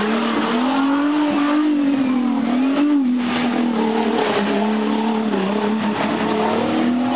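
A Jeep-type 4x4's engine revving hard under load as it churns through a mud pit, the revs held high and swinging up and down as the wheels spin and grab, with the tyres throwing mud.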